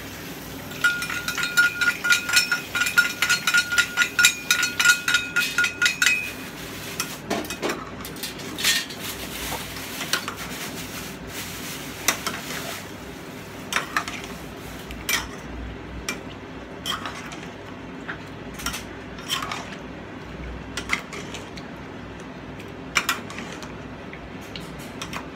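Metal utensil stirring stew vegetables in a steel cooking pot. A fast run of clinks against the pot, with the pot ringing, lasts about five seconds near the start. Occasional single clinks and scrapes follow.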